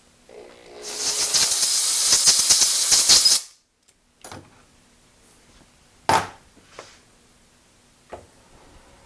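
Compressed-air blow gun hissing hard for about two and a half seconds, then cutting off suddenly. A few short metallic knocks follow, the loudest about six seconds in.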